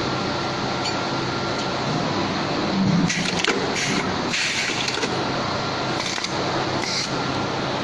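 Steady hum of running factory machinery around an automatic riveting machine, with several short bursts of hiss and clatter between about three and seven seconds in.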